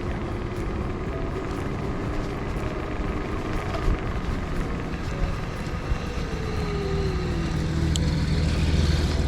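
City street traffic heard while riding along, with steady road noise. Near the end a vehicle's low engine hum grows louder.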